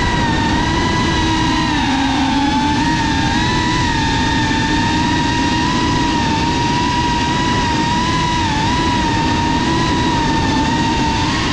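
Geprc Cinelog35 FPV cinewhoop's four motors and ducted propellers whining steadily, heard close from the onboard GoPro. The pitch wavers only a little with throttle as the drone cruises.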